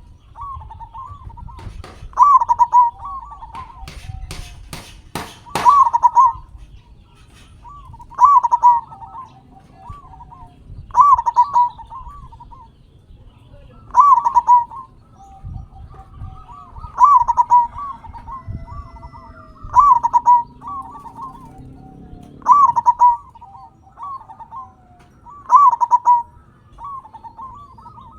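Zebra dove (perkutut) singing its staccato cooing phrase over and over, about one phrase every three seconds. A quick run of sharp clicks comes about four to six seconds in.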